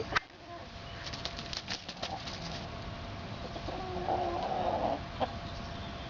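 A hen's soft, low murmuring call about two-thirds of the way through, among light clicks and rustles, over a faint steady tone.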